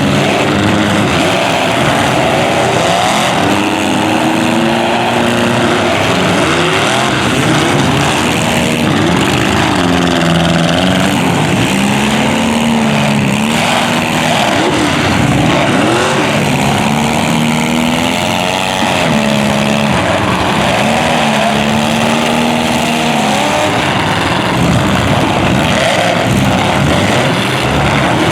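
Several demolition derby cars' engines running and revving at once, their pitches rising and falling and overlapping, loud and continuous.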